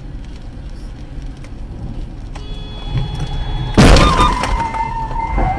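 Car driving on a wet road, then a sudden loud crash of a collision about four seconds in, followed by a steady electronic tone.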